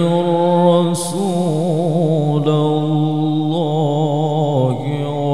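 A man's voice chanting a melodic Quran recitation (tilawah), drawing out a long vowel in held notes with wavering ornaments, amplified through a microphone.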